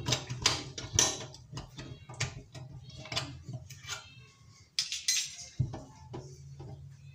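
Light metallic clinks and knocks as a stainless-steel basket strainer is worked out of a kitchen sink drain and set down on the stainless-steel sink bowl, loudest about a second in and again around five seconds.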